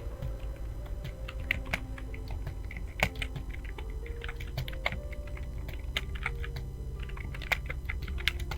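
Typing on a computer keyboard: a quick, irregular run of key clicks, with a few louder keystrokes.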